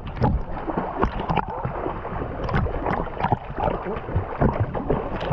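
Water splashing and sloshing with many short, irregular splashes, as people swim.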